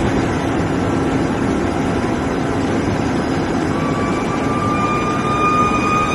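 Steady machine noise of a steel billet induction heating line. A high whine comes in about four seconds in and slowly rises in pitch, with a fainter higher tone joining it.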